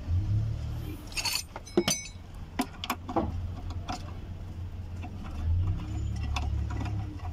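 Metal clinks and a short rattle of hand tools and bolts being handled at an engine's timing cover: a quick rattle about a second in, a ringing clink soon after, then scattered sharp clicks, over a steady low rumble.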